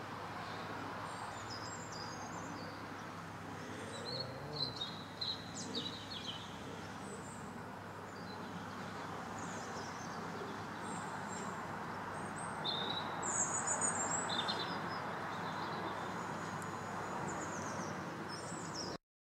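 Small birds chirping in short bursts, loudest twice, over a steady low rumble from a diesel-hauled train moving away. The sound cuts off abruptly near the end.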